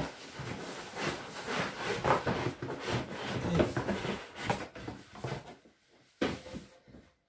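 Cardboard box being handled and lifted off a molded pulp packaging insert: a busy run of cardboard scraping, rubbing and knocking, then one sharp knock near the end as things are set down.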